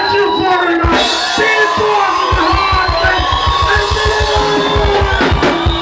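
Live Zimbabwean rumba band playing: electric guitar lines over bass and drums with a fast, driving low beat, and a vocalist singing over it.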